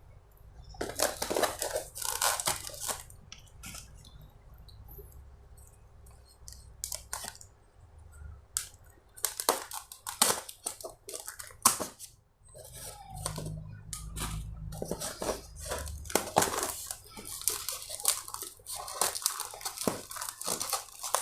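Packaging being torn open and crumpled by hand: irregular bursts of tearing and rustling with a few sharp crackles.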